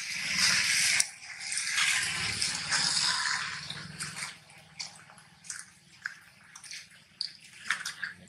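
Wet splashing and rushing water noise for about four seconds, then scattered drips and small clicks.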